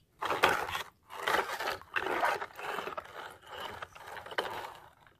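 Plastic toy vehicles being handled in shallow muddy water, making a series of short rough scraping and sloshing noises.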